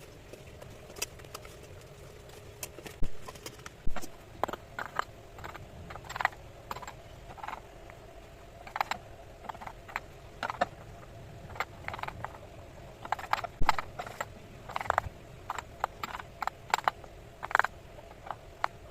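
Irregular taps and clinks of kitchen utensils, several a second, some ringing briefly.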